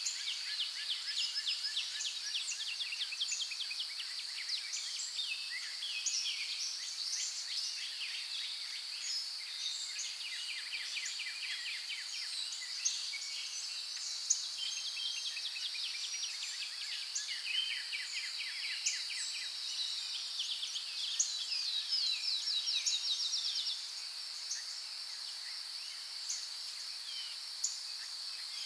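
Several birds chirping and singing in fast trills over a steady high-pitched insect drone.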